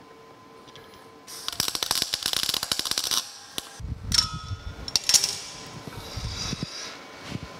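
Welding arc crackling for about two seconds and stopping sharply: a tack weld joining a square steel tube leg to a steel base plate. Then a few metal clanks and knocks as the work is handled.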